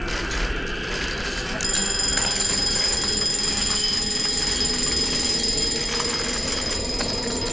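A high-pitched electronic alarm tone sets in about a second and a half in and holds steady, over a dark, low rumble.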